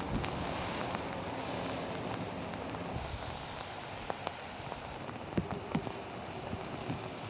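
Steady outdoor noise with wind buffeting the microphone, and a few light knocks about four to six seconds in.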